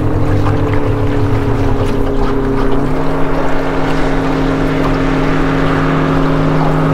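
Boat motor running at a steady pitch, its note shifting once about three seconds in as the throttle changes.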